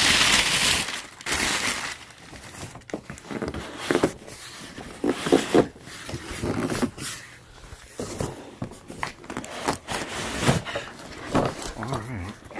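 Brown kraft packing paper crumpling and rustling as it is pulled out of a shipping box, loudest in the first second. After that come scattered rustles and short knocks of cardboard being handled.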